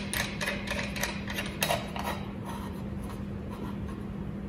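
Light metal clicks of a pendant light's retainer nut being turned by hand on the threaded rod against the canopy cover, about three a second for the first two seconds, then stopping. A steady low hum runs beneath.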